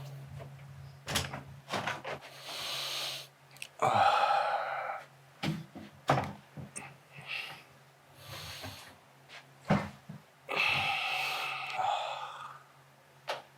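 A person breathing out in heavy, breathy sighs, three times, among scattered clicks and knocks, over a steady low hum.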